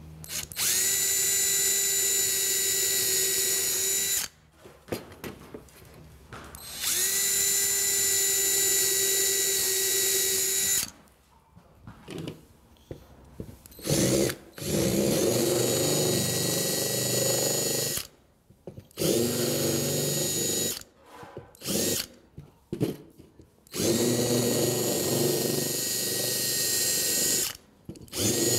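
Cordless drill boring a screw hole through a wooden horseshoe. Two steady runs of about four seconds each come first, then a string of runs, some brief and some a few seconds long, as a countersink bit cuts into the wood with a rougher grinding sound.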